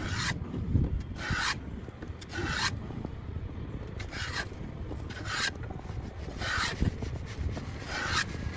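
Antique metal filister (rabbet) plane taking repeated rasping strokes along a wooden window sash, shaving a glued-in pine parting-bead Dutchman flush with the sash side. About one stroke a second, seven in all.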